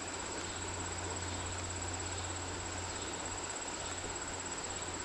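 Insects trilling steadily at a high pitch over a steady, even hiss.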